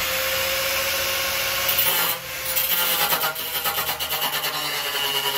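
Corded reciprocating saw cutting through the sheet-metal radiator core support of a car. It runs steadily, stops briefly about two seconds in, then cuts on with a choppier, pulsing sound.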